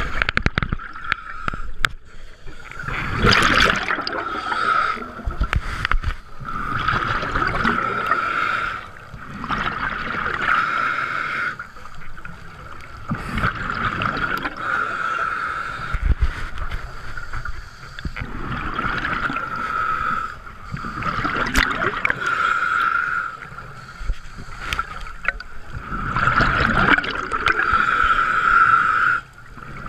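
Scuba diver breathing through a regulator underwater. A hissing inhale alternates with bursts of exhaled bubbles, repeating every few seconds.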